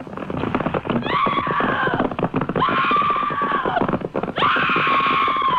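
Horse whinnies as a radio sound effect: three long cries, each falling in pitch and then held, over a fast clatter of hoofbeats.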